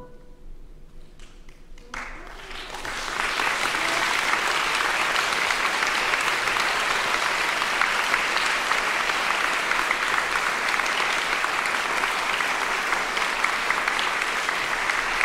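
After a short hush, audience applause starts about two seconds in, swells within a second and keeps going steadily, greeting the end of a choir performance.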